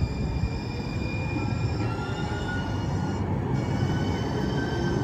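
Light-rail trolley train rolling past a platform: a steady low rumble with high, thin whining tones from the wheels and drive, which shift in pitch about two seconds in.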